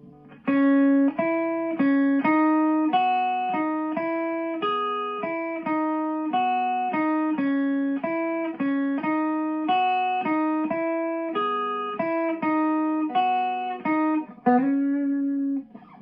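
Electric guitar playing a single-note riff through a TC Electronic Forcefield compressor pedal with its sustain knob at 3 o'clock. It ends on a longer held note.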